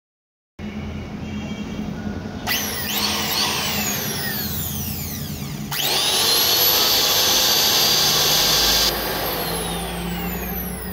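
GAOCHENG GC-H82P electric planer's motor, fitted with a new armature, switched on and off in bursts: its whine falls away as the motor coasts down, then rises sharply about halfway through and holds at full speed for about three seconds before dropping off.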